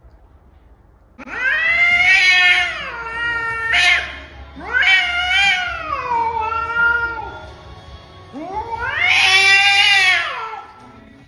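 A cat yowling angrily: three long drawn-out calls, each rising then falling in pitch, starting about a second in. After the first call comes a short sharp noisy burst.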